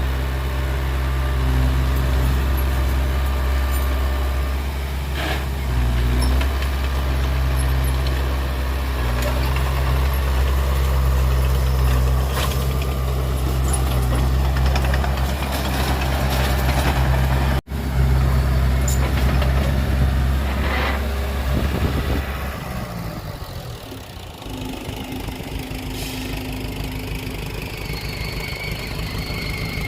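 Heavy diesel engine of earthmoving machinery running steadily with a deep hum, then falling away about three-quarters of the way through. A quieter, rougher running sound and a thin high whine follow near the end.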